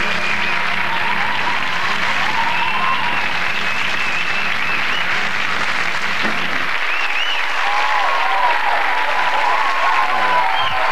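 A studio audience applauding and cheering, with music underneath that stops about seven seconds in.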